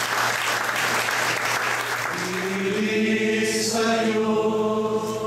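Audience applauding, fading out over the first two seconds or so, as a group of voices begins singing together in long held notes.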